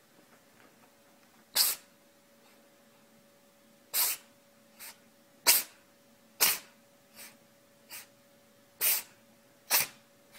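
An animal sneezing again and again: six sharp sneezes with a few fainter ones between, spaced one to two seconds apart.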